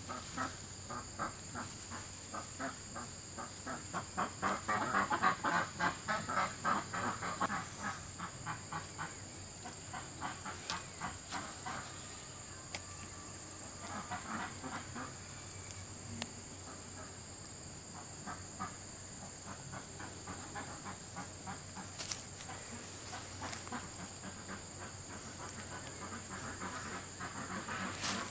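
A flock of farm poultry calling in quick, repeated short notes, loudest about four to eight seconds in and picking up again near the end.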